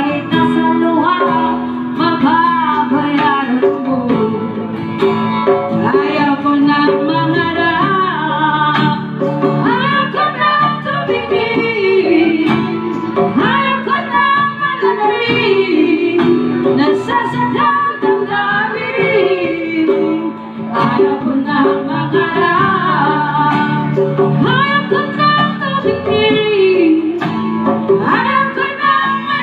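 Live acoustic band music through a PA: women singing a melody over strummed acoustic guitar and a hand drum.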